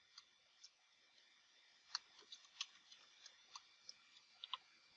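Faint, irregular clicks of computer keyboard keys being typed, sparse at first and then two or three a second from about two seconds in.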